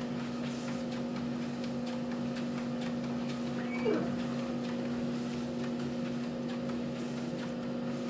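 Electric treadmill running steadily under a walking puppy, its motor giving an even hum. A brief squeak is heard about four seconds in.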